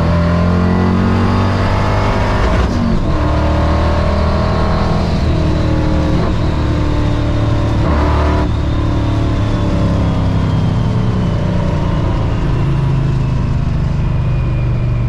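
Supercharged small-block V8 of a stick-shift 1960 Corvette pulling hard down the strip, heard from the open cockpit. The engine note breaks at gear changes about 3 seconds and 8 seconds in.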